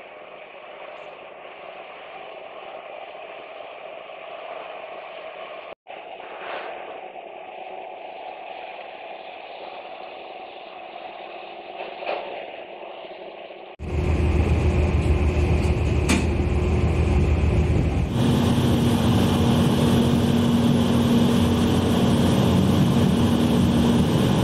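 A faint steady hum for about the first fourteen seconds, then an abrupt change to the loud, steady drone of a small harbour ferry's engine heard on board. A low steady tone joins the drone a few seconds later.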